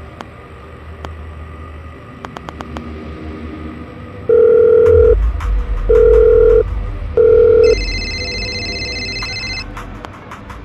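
Mobile phone call being placed: a few faint taps, then three loud low beeps, then a higher trilling ring lasting about two seconds, before the call is picked up. A low music drone runs underneath.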